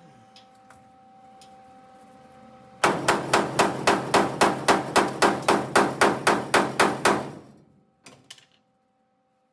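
Hammer blows on sheet steel as a fabricated repair section is shaped: a rapid, even run of about four blows a second for some four seconds, followed by two lighter taps.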